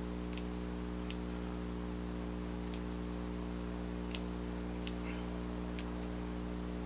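Small scissors snipping quarter-inch EVA craft foam, giving faint single clicks every second or so as a tooth's edge is rounded off. A steady electrical hum sits underneath.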